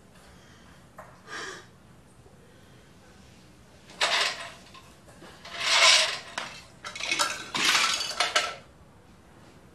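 Cutlery clattering against bowls and dishes in three bursts from about four seconds in, as noodles are eaten.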